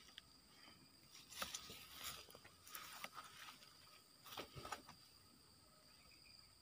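Near silence, with faint rustles and a few light clicks as loose oil palm fruitlets are handled and put into a wire-mesh fish trap.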